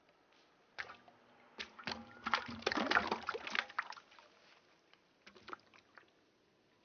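Water sloshing and splashing over peeled potato wedges in a frying pan as the pan is shaken, a dense flurry of splashes that thins out to a few scattered drips and taps.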